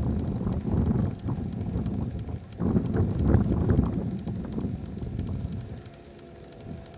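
Wind buffeting the camera microphone in uneven gusts, a loud low rumble that surges and eases off, dropping away near the end.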